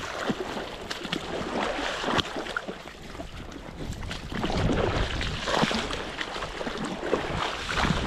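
River water splashing and sloshing close by, in irregular bursts over the steady rush of the current.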